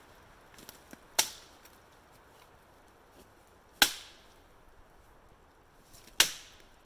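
Three sharp cracks of dry wood, about two and a half seconds apart, as a dead branch is broken up by hand.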